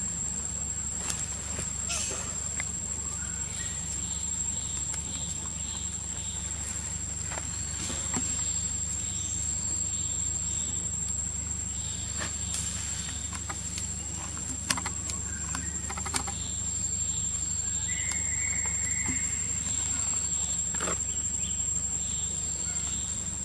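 Steady, high-pitched insect drone, with scattered short clicks and rustles of leaf litter.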